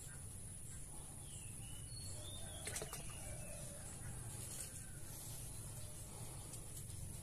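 Faint outdoor ambience: a few short bird chirps over a steady high-pitched hiss and a low hum, with a single sharp click a little under three seconds in.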